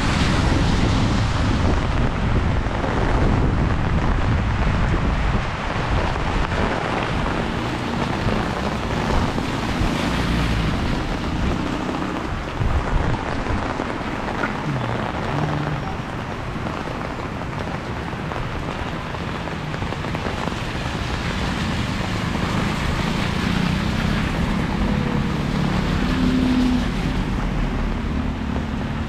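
Steady rain falling, with wind rumbling on the action camera's microphone. A motor vehicle's engine hum comes through in the latter part.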